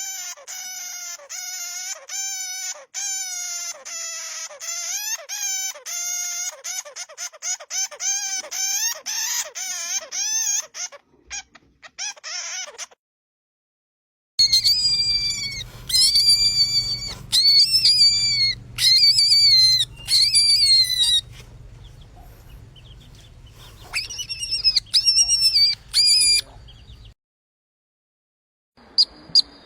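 Mouse squeak sound effects played one after another. First comes a long run of short squeaks, each bending in pitch, which get quicker and choppier before cutting off. After a short gap comes a second set of higher, sharper squeaks over a low steady hum.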